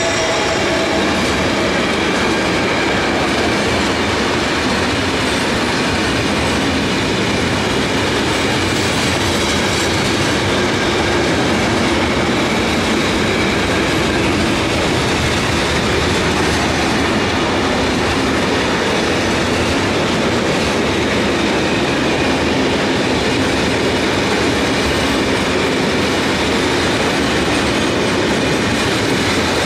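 Long freight train of pocket wagons carrying semi-trailers passing close by at speed: a loud, steady rolling noise of steel wheels on the rails.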